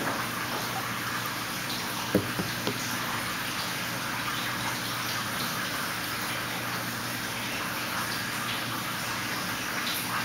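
Steady rushing of running water with a low hum underneath. A few light knocks come about two seconds in.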